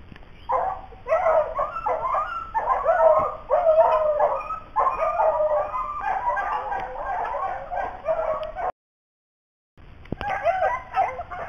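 A pack of hounds baying on a rabbit's trail, several voices overlapping in a continuous chorus. The sound drops out completely for about a second near the end, then the baying resumes.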